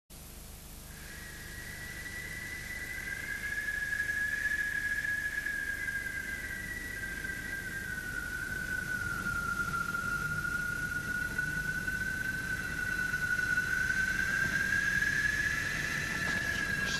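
A single high-pitched sustained tone fades in about a second in, grows louder, and slowly drifts down in pitch and back up again, over a faint low hum.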